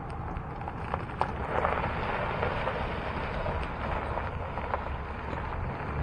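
A vehicle driving on a gravel track: a steady low drone under crackling noise that swells about a second and a half in, with a few sharp clicks just before.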